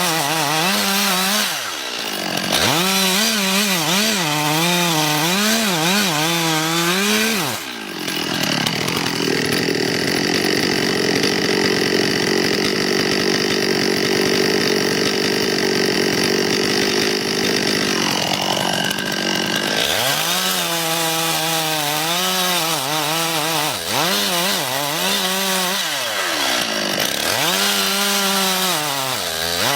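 Chainsaw engine revving up and down, then held at a steady high speed for about ten seconds while cutting through wood, then revving up and down again.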